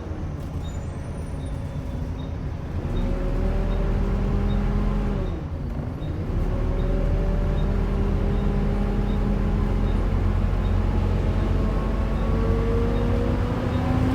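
Volvo B7TL double-decker bus's diesel engine heard from on board under way, with the whining drone bus enthusiasts call a "hoover". The engine note rises as the bus pulls, drops sharply at a gear change about five and a half seconds in, then climbs steadily as it accelerates. A faint regular ticking runs underneath.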